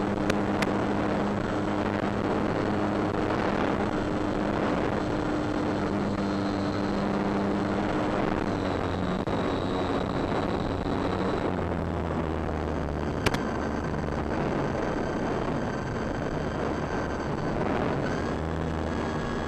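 Durafly Tundra RC plane's electric motor and propeller, heard from its onboard camera under heavy wind rush. The motor tone drops about halfway through as the plane comes down to land. There are two sharp clicks near the start and one at about 13 s.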